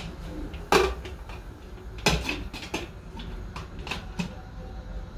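Aluminium pressure cooker lid being set on the pot and closed: a loud metal clunk about a second in, then a few lighter knocks and scrapes.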